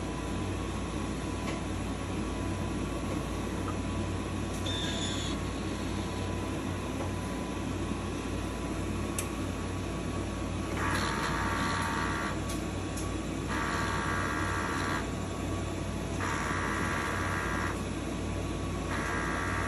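Large-format inkjet printer running a nozzle-cleaning cycle on both print heads: a steady machine hum, and about halfway through a motor begins to whir in four short runs of about a second and a half, each starting roughly every two and a half to three seconds.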